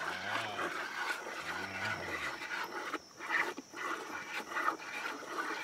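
Cattle lowing: two low moos, one right at the start and a longer one about a second and a half in, each rising and falling in pitch.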